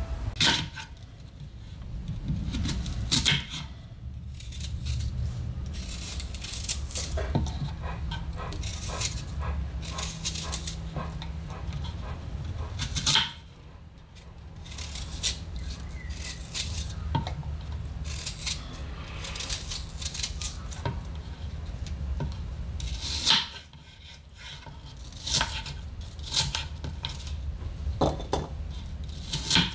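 A small paring knife knocking and scraping on a wooden cutting board while apple quarters are peeled and cut, with apple pieces clinking into a ceramic dish. The sharp knocks are irregular, over a steady low hum.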